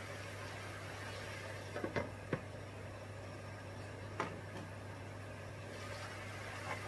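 Glass pan lid clinking against a frying pan: a few sharp clinks about two seconds in and one more a little after four seconds, over a steady hiss and low hum.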